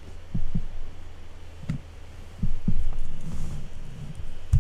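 A steady low electrical hum, with about six irregular, dull low thumps through it; the strongest comes near the end.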